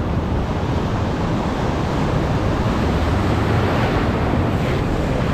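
Heavy surf washing onto the shore in a rough sea, with wind buffeting the microphone as a steady low rumble.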